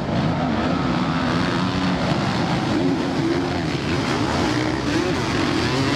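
Engines of a pack of motocross bikes racing together, several overlapping engine notes rising and falling as the riders work the throttle through the corner and along the straight.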